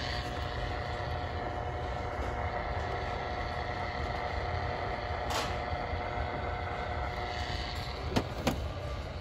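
Plastic cube clock radio being handled and turned over, with a faint click about five seconds in and two sharp knocks close together near the end as it is set back down on the shelf, over a steady low hum.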